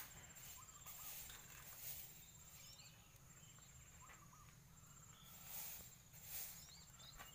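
Faint rural ambience: a steady high insect trill, typical of crickets, with scattered short bird chirps.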